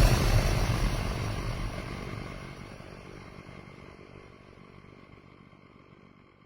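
Long fading tail of a cinematic sound effect: a low rumble with a thin hiss on top, dying away steadily over about six seconds.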